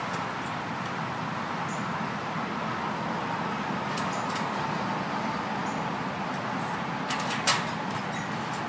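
Steady hum of road traffic, with a few sharp knocks: a pair about four seconds in and a louder one about seven and a half seconds in that rings briefly.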